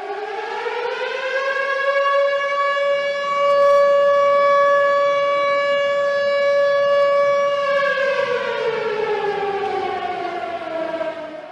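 Outdoor warning siren winding up to a steady high tone, holding it for about six seconds, then sliding down in pitch over the last few seconds.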